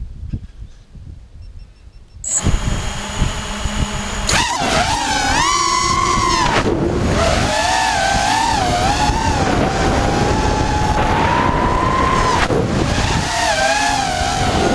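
ImpulseRC Alien FPV racing quadcopter's brushless motors and propellers whining, the pitch rising and falling constantly with throttle as it flies, recorded on board. The first two seconds hold only a faint low rumble before the motor sound comes in loud.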